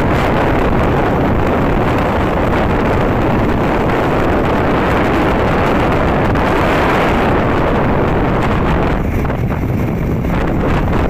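Wind rushing over the microphone while riding in the open on a moving road vehicle, a loud steady roar with vehicle noise mixed in. It eases slightly about nine seconds in.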